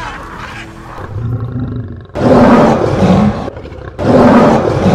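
Lion roars, two loud rough roars, the first about two seconds in and the second about four seconds in, running on past the end.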